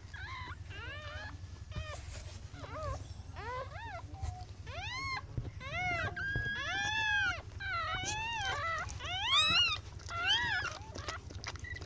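Puppies whining and squealing: a rapid string of short, high cries that rise and fall in pitch, sometimes two at once, with a low rumble underneath.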